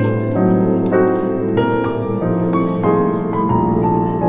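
Background music: a piano or keyboard melody of held notes that change every second or so, over sustained bass notes.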